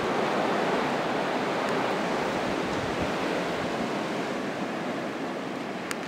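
Blizzard wind blowing steadily, a continuous rush with wind buffeting the microphone, easing slightly toward the end.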